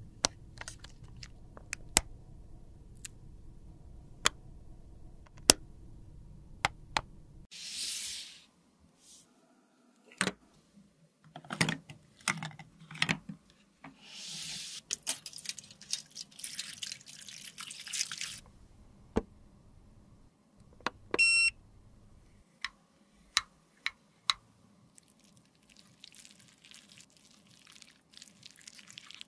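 Plastic makeup cases and tools being handled: a run of sharp clicks and taps from compact lids and cases, broken by a couple of longer rubbing or scraping stretches and a short ringing clink. Near the end a metal spatula scrapes softly through lipstick.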